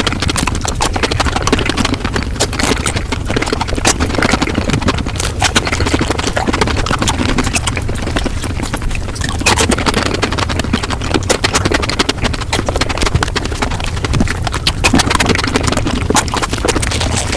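Close-miked eating sounds sped up about five times: a dense, fast run of chewing and crunching clicks.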